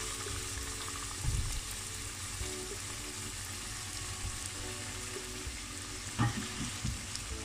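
Baursaki dough pieces deep-frying in hot oil, a steady sizzle. Two dull knocks, about a second in and again near the end, as the wooden spatula works in the pot.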